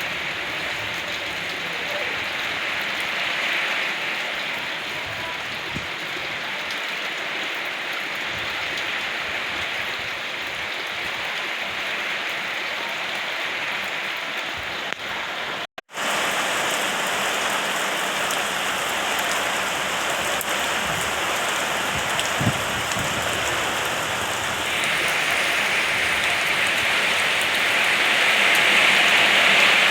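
Steady rainfall. It drops out for a split second about halfway through, then comes back a little louder and brighter, and it swells louder again near the end.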